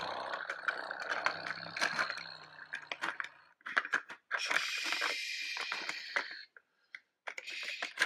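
Small plastic toy wheel loader rolled and handled across a plastic playset: scraping and rattling with many small clicks, in two stretches with a short pause between them.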